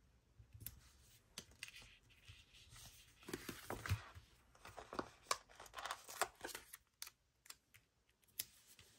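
Faint paper handling: stickers peeled off a sticker sheet and pressed onto a planner page, and a planner page turned, giving scattered soft crinkles, taps and rustles.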